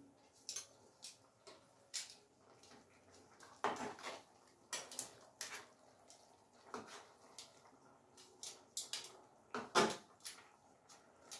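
Metal kitchen tongs clicking and scraping against a pot as spaghetti is tossed: irregular light clinks and taps, the loudest near the end.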